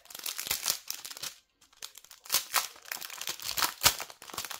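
Clear plastic bag of diamond-painting gems crinkling as it is handled, in irregular bursts with a brief pause about a second and a half in.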